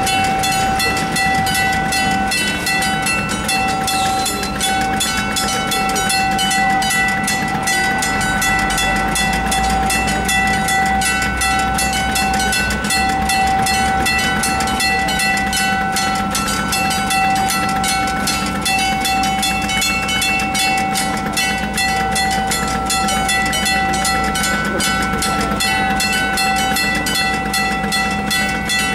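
Electronic level-crossing bell ringing continuously through its loudspeakers, a rapid, steady string of metallic dings, warning that the barriers are down and a train is due.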